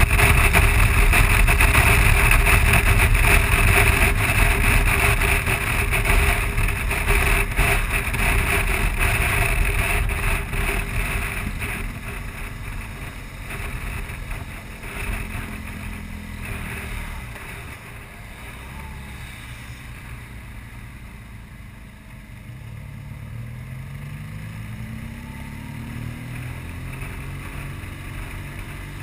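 Wind rushing over the microphone with a BMW R1200GS's boxer-twin engine at road speed, loud at first, then dropping away over several seconds as the bike slows. Near the end the engine note climbs again as it pulls away.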